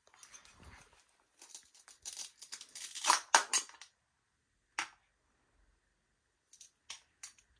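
Rustling and rasping handling noises, loudest about two to four seconds in, followed by a sharp click and a few lighter clicks near the end.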